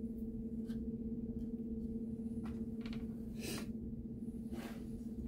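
A steady low electrical hum, with a few faint clicks and two brief rustles, about three and a half and four and a half seconds in, as the wiring of an RC crawler chassis is handled.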